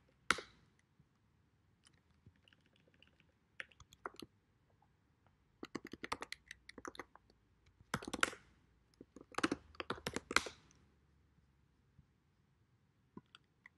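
Typing on a computer keyboard: short keystroke clicks in irregular bursts, with the loudest flurries about eight seconds in and again around ten seconds in.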